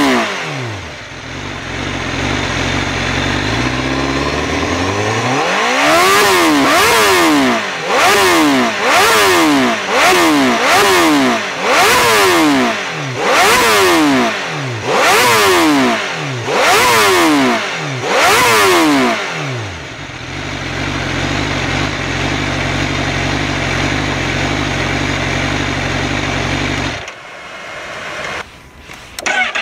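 Honda CBR1000RR-R SP's inline-four engine through an Akrapovic exhaust, revved in neutral on the stand. It idles, then gets a quick series of throttle blips, about one a second, each rev shooting up and falling straight back, before settling to a steady idle. Near the end the engine is switched off and then fires up again.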